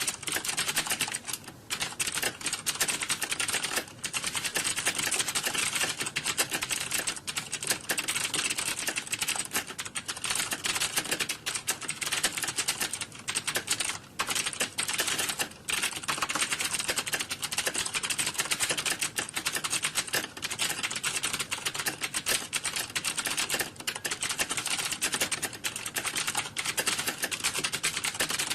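Fast, continuous typing on a computer keyboard: a dense clatter of keystrokes with a few short pauses.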